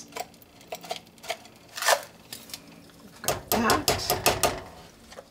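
A metal measuring spoon clicking and clinking against a metal cooking pot as powder is spooned in. There is one sharp knock about two seconds in and a quick run of taps and knocks near the end.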